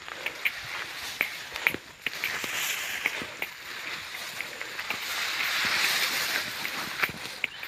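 Grass rustling and wind hiss, swelling a little past halfway, with scattered sharp clicks and the chirping of crickets.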